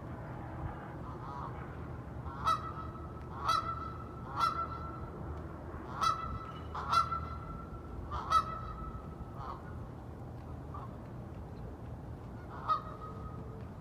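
A flock of wild waterfowl calling: six loud, nasal honking quacks about a second apart, then two fainter ones and a last loud call near the end. A steady low rumble runs underneath.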